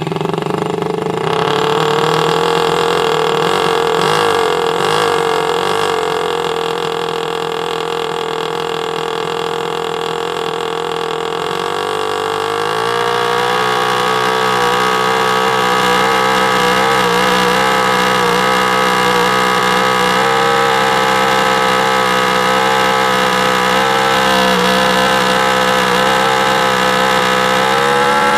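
Small two-cylinder gasoline engine of a 1/8-scale RC car running steadily under load on a roller dyno, driving the spinning wheels. The engine note steps up about halfway through and then holds, wavering slightly.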